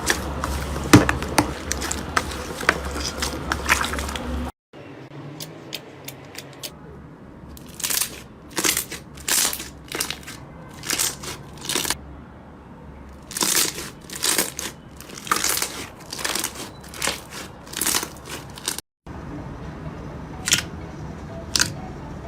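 Hands working slime, making crackling, crunching and sharp popping clicks. It is dense crackle at first, then separate pops about twice a second, then a few scattered clicks, split by two abrupt cuts.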